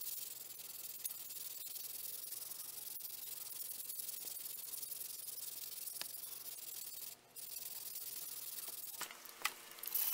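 Hand-sanding of a desert ironwood burl knife handle, sandpaper rubbed quickly back and forth as a steady hiss. It pauses briefly about seven seconds in, and a couple of light clicks come near the end.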